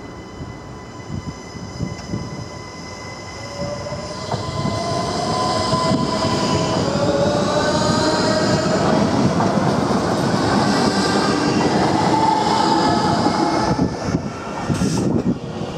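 SNCB Siemens Desiro ML (AM08) electric multiple unit passing along the platform: a wheel-on-rail rumble and a whine that rises in pitch as it nears. It is loudest as the carriages run past, then fades as it pulls away. A single sharp click comes near the end.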